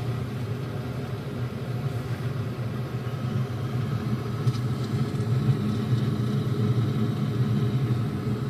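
A steady low mechanical rumble, unchanging throughout.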